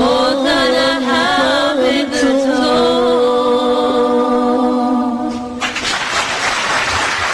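A singing voice chanting a winding melody, then settling on a long held note that breaks off about five and a half seconds in, after which a steady hiss of noise takes over.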